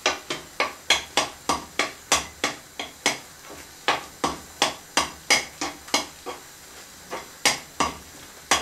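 A stirring utensil knocking and scraping against a pan while a thick pepper sauce is stirred, about four quick knocks a second, growing sparse after about six seconds.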